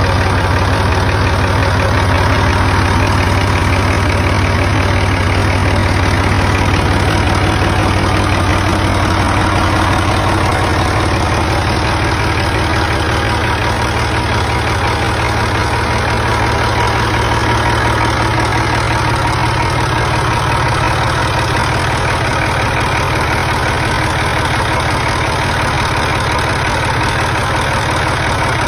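Massey Ferguson 135 tractor engine idling steadily, its low hum stepping up slightly in pitch about ten seconds in.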